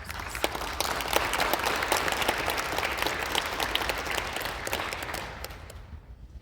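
Audience applauding at the end of a piece of music, the clapping swelling quickly and then dying away after about five seconds.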